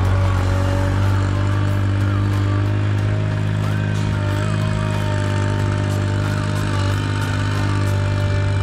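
Compact tractor's engine running steadily, holding one even pitch.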